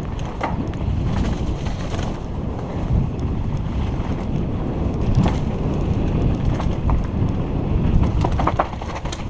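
Wind buffeting a helmet-mounted camera's microphone over the rumble of mountain bike tyres rolling on a rocky dirt trail, with scattered clicks and rattles from the bike over bumps.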